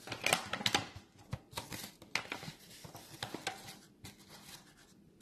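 Rustling, crinkling and light clicking as a protein powder container is handled, busiest in the first second, then scattered clicks.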